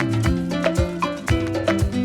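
Upbeat background music with a steady beat: plucked and held notes over regular percussion.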